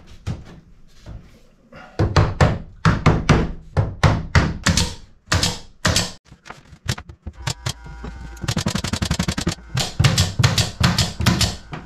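Pneumatic brad nailer firing shot after shot, driving brads through tongue-and-groove boards into a wooden bulkhead, a few sharp thunks a second. A fast rattle of clicks comes about two-thirds of the way through.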